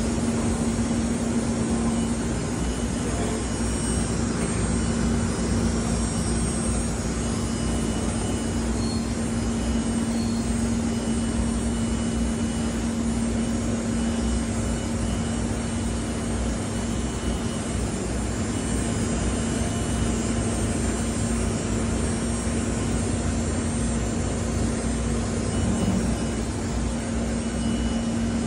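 Gold Star StarPro AG 510 CNC router running: a steady machine drone with one constant hum that does not change.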